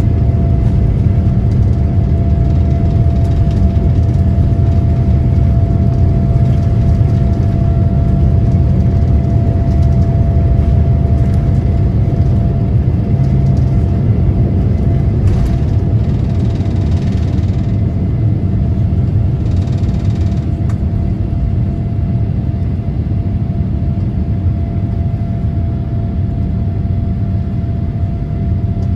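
Boeing 787-9 jet engines and airflow heard from inside the passenger cabin around takeoff: a steady, loud low rumble with a thin, steady whine above it, easing slightly toward the end.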